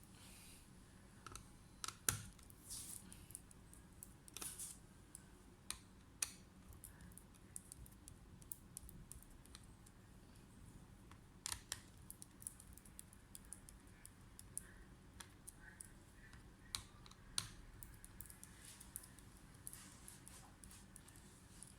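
Sparse, irregular light clicks and taps from a laptop being handled, a few of them sharper and louder, such as around two seconds in and near the middle.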